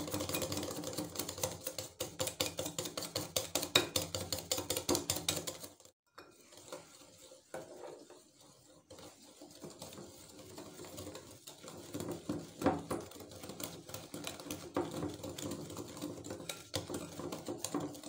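Wire whisk beating against a glass bowl: a fast, steady rattle of clicks. After a short break about six seconds in, the whisking goes on slower and quieter as flour is worked in, with a few louder clinks against the glass near the end.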